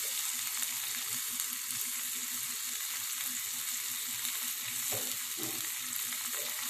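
Chopped green capsicum sizzling steadily in butter in a nonstick frying pan, with soft scraping as a silicone spatula stirs it.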